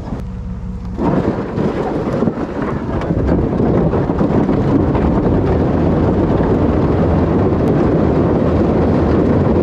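Cut-off sheet-metal pickup cab roof dragged upside down over a gravel road on straps behind a pickup: a loud, steady scraping rumble that starts about a second in, grows louder over the next few seconds, then holds.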